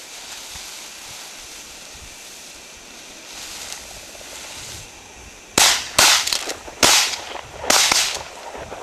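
Shotgun shots at a pheasant hunt: four sharp blasts in about two and a half seconds, starting about five and a half seconds in, each with a short echo.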